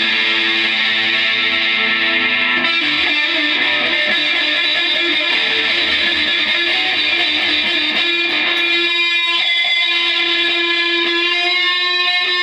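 Electric guitar played loud, with long sustained notes; about nine seconds in the low end drops away and a high held note rings on.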